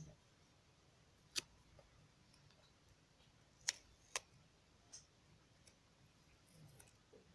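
Near silence with four faint, sharp clicks from small paper model pieces being handled and stuck together: one about a second and a half in, two close together near four seconds, and one around five seconds.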